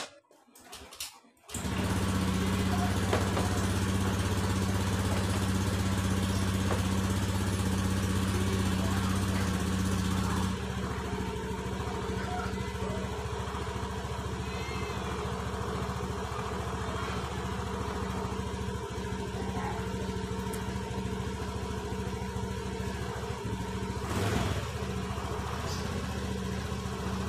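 A small engine running steadily, starting about a second and a half in and easing slightly in level about ten seconds in.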